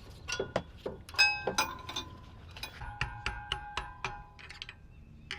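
Light metal clinks and knocks, several ringing briefly, the loudest about a second in, as a bungee cord's hooks are fastened around a removed brake caliper and the shock absorber.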